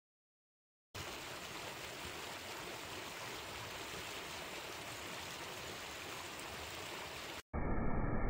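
Rushing water of a waterfall cascading over rocks: a steady, even rush that starts about a second in. Near the end it cuts out for a moment, and a louder, more muffled rush of water takes over.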